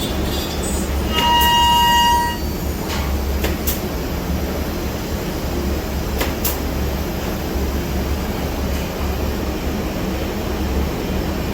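Rover A Smart 5-axis CNC router machining a curved wooden part, running with a steady hum and noise. About a second in, a louder, high whine from the cutting lasts about a second, followed by a few light clicks.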